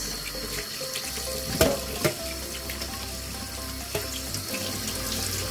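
Tap water running over a corned beef silverside in a stainless steel colander in the sink, rinsing off excess salt. Two sharp knocks come a little under two seconds in.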